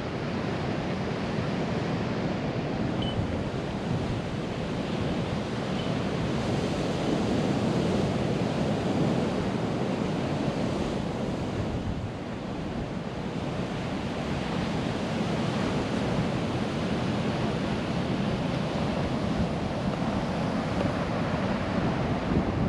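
Gulf of Mexico surf washing steadily onto the beach, with wind buffeting the microphone.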